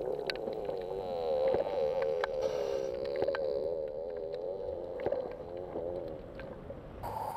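Male harbour seal's underwater mating song: a low, warbling call that wavers up and down in pitch for about six and a half seconds, with faint scattered clicks.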